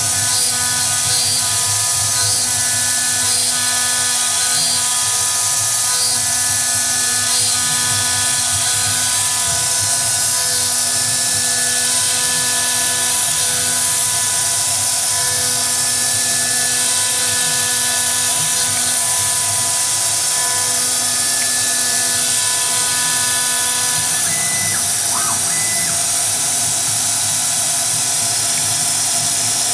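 2.2 kW CNC router spindle running at high speed: a steady high-pitched whine and hiss, with several steady machine tones that stop and start every couple of seconds as the machine works, falling away about three-quarters of the way through.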